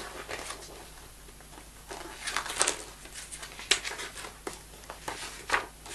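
Pages of a book being turned and handled: soft paper rustles and light ticks, coming irregularly from about two seconds in.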